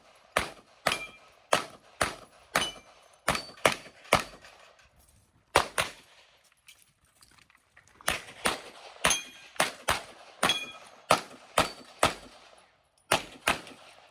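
Rapid 9mm pistol fire from a Glock 48 in a USPSA stage: about twenty shots in two quick strings, with a pause of about two seconds between them. Some shots are followed by a brief metallic ring.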